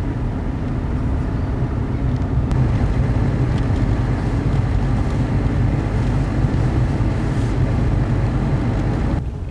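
Steady low rumble of a car driving, road and engine noise heard from inside the cabin, easing off slightly near the end.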